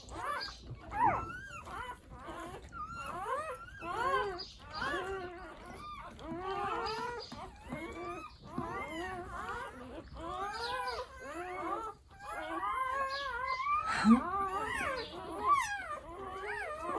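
Newborn puppies squeaking and whimpering: many short, rising-and-falling high calls, several at once, with one lower, louder cry near the end.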